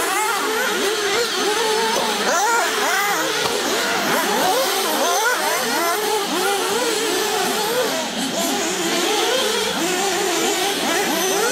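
Several 1/8-scale nitro RC cars' small two-stroke glow engines screaming at once, each revving up and down as the cars race around a dirt track.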